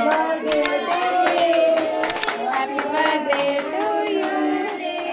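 A group of adults and children singing together, with many hands clapping along.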